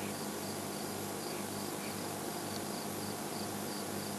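Crickets chirping in a steady rhythm, about three short chirps a second, over a low steady hum.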